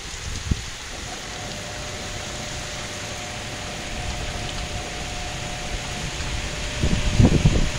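Heavy rain pouring steadily onto flooded ground, an even hiss, with a faint steady hum under it. Near the end, a gust of strong wind rumbles loudly on the microphone.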